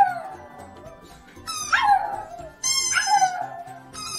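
Pug howling in three short yowls, each jumping up and then sliding down in pitch, over background music.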